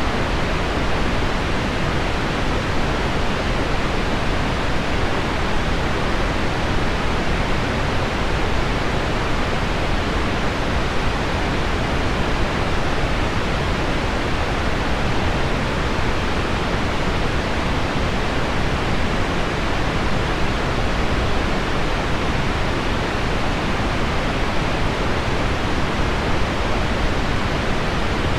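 Steady, unbroken rushing noise: heavy rain on window glass blended with low, deep pink noise, no single drops or other events standing out.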